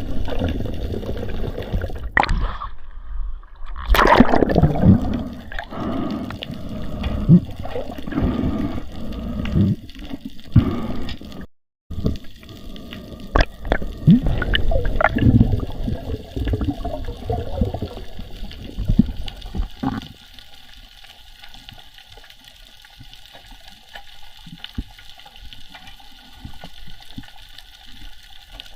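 Water sloshing and gurgling around the microphone, with scattered knocks. It drops out briefly near the middle and becomes much quieter for the last third.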